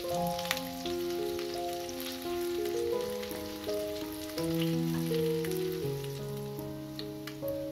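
Hot oil sizzling with small spattering crackles as zucchini and carrot fritters fry in a pan, under background music of slow held notes.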